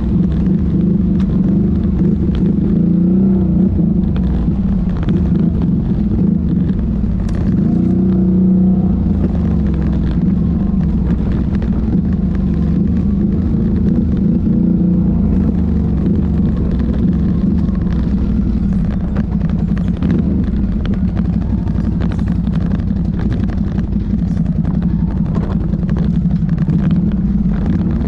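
ATV engine running steadily under way, its pitch rising and falling a little with the throttle. Scattered clicks and knocks are heard throughout.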